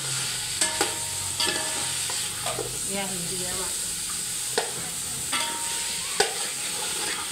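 Potato chunks frying in oil in a metal pot, with a steady sizzle, while a perforated metal skimmer stirs them. The skimmer scrapes along the pot and knocks against it several times.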